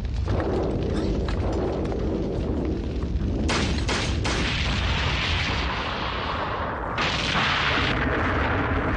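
Film battle sound effects: a continuous rumble of explosions and fire, with two sharp gunshots about three and a half seconds in and a fresh loud blast about seven seconds in.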